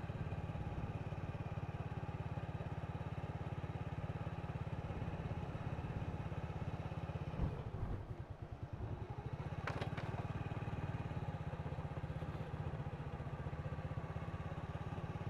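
Small motorbike engine running steadily while riding, easing off briefly about halfway through before picking up again.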